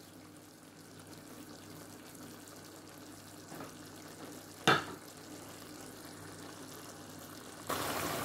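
Chicken and vegetables sizzling faintly in a pot, with one sharp knock a little past halfway. Near the end the sizzling turns suddenly louder as a wooden spoon stirs the pot again.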